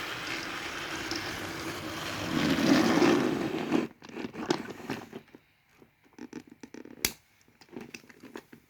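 Battery-powered Trackmaster toy engine running on plastic track while pulling a line of trucks: a steady whirring rattle that grows louder, then cuts off suddenly about four seconds in. Scattered small clicks and knocks follow.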